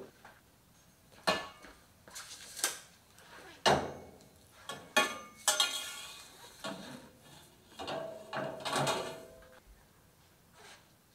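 Irregular metallic clanks and scrapes as a long steel bar is handled against the car's rear hub and suspension, with a brief ring of metal near the end.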